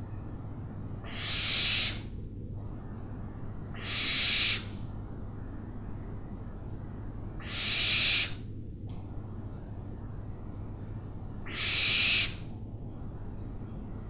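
An owl giving four harsh, hissing screeches about three and a half seconds apart. Each lasts just under a second, swells and then cuts off sharply, over a steady low background hum.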